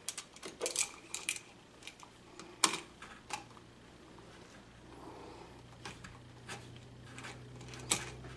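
Irregular small clicks and taps of a screwdriver and metal terminal screws on a light switch as the wires are tightened down, with one sharper click about two and a half seconds in.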